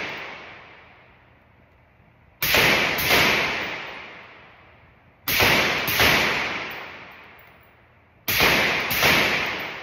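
Suppressed 5.56mm rifle fitted with a CGS SCI-SIX suppressor firing three quick pairs of shots, the two shots of each pair about half a second apart and the pairs a few seconds apart. Each shot trails off in a long echo off the walls of an indoor range.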